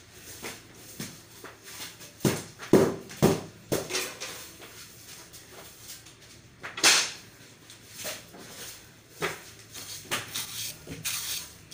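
Soft grass broom (walis tambo) sweeping a floor: irregular swishing strokes of the bristles, with a few louder knocks and bumps about two to four seconds in and again near seven seconds.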